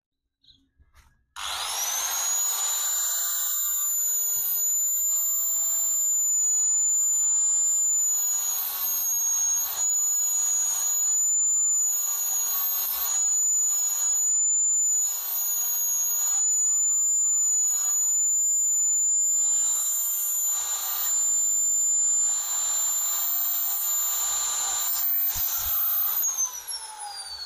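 Angle grinder spinning up about a second in and running with a steady high whine, grinding in short repeated passes against the steel sector gear of a car power-window regulator to shape new triangular teeth. It winds down with a falling whine near the end.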